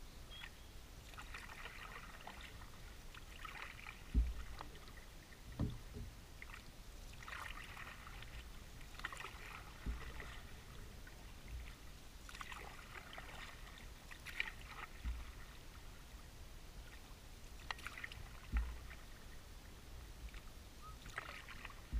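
Canoe paddling: a paddle dipping and pulling through the water, with a swish and drip every two to three seconds. A few low thumps come in between the strokes.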